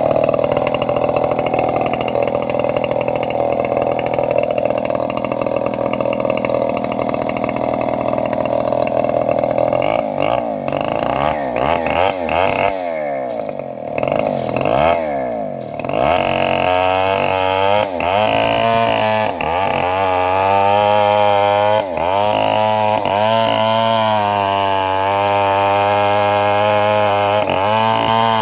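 Homemade bandsaw running and sawing trembesi (rain tree) wood. About halfway its pitch starts dipping and recovering every second or two as the blade takes load.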